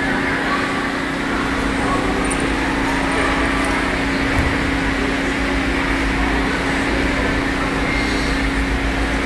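Steady background noise of a large hall: a constant low hum under an even hiss, with no clear single event.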